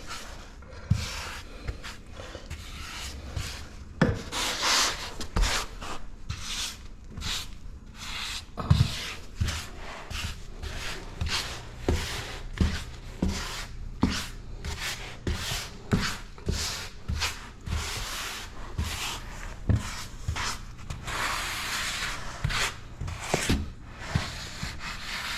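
Grout being spread and scraped across tile in many repeated rubbing strokes, with a few short knocks among them.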